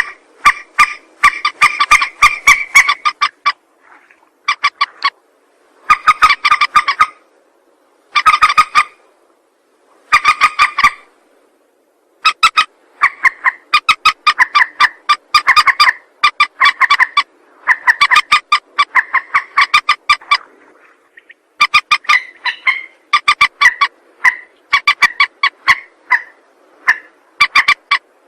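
Mandar (rail) calls played as a lure recording: runs of rapid, sharp, repeated notes, each run lasting one to a few seconds with short pauses between.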